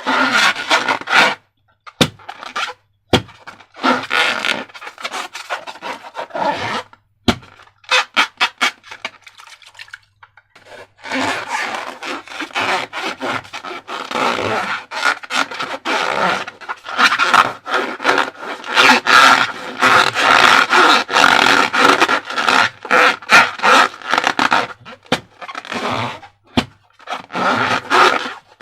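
Sticky slime squelching and crackling as it is squeezed and worked by hand, in repeated bursts with short pauses, then almost without a break from about a third of the way in.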